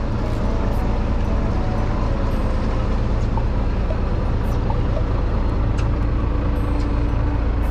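Fishing boat's engine running steadily: an even low hum with noise above it and a few faint clicks.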